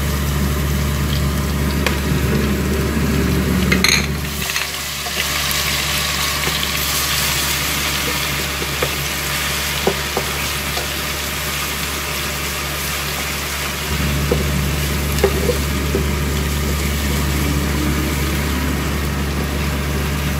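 Garlic paste and whole spices sizzling as they fry in hot oil in a metal pot, stirred with a wooden spatula that scrapes and taps the pot now and then. A steady low hum sits underneath, stopping about four seconds in and coming back about fourteen seconds in.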